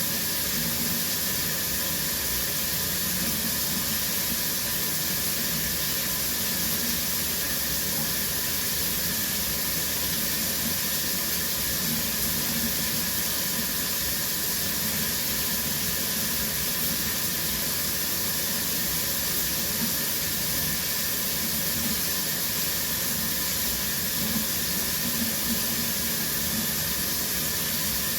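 Shower running steadily, the spray of water hissing against the shower floor and walls, with no change.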